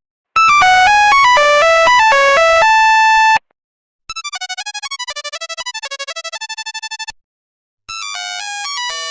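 Nokia 1100 monophonic ringtone melodies: three short beeping tunes one after another with brief silences between, the second chopped into a rapid fluttering pulse.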